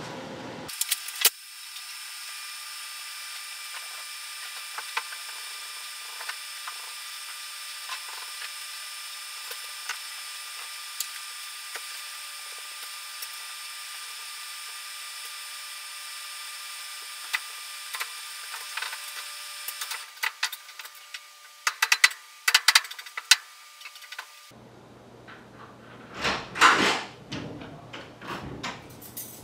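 A steady hiss with scattered light clicks, cut off suddenly; then a door is opened, with several loud knocks and clatters.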